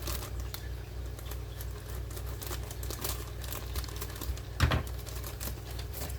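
Crinkling and rustling of paper and plastic packaging with scattered small clicks as items are handled, and one louder thump about four and a half seconds in. A steady low hum runs underneath.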